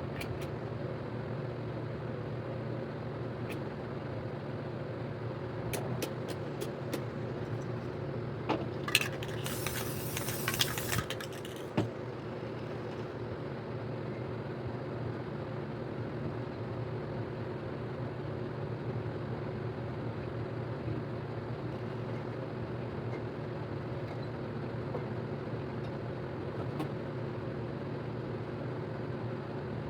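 Steady mechanical drone. About nine seconds in, after a few light clicks, a spray paint can hisses in short bursts for about two seconds.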